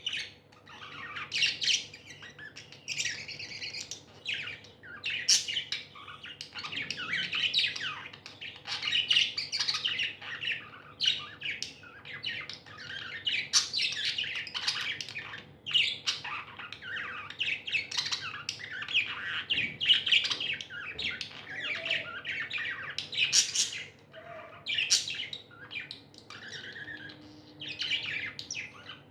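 A flock of pet budgerigars chirping and chattering without a break, several birds calling over one another in quick, high-pitched notes.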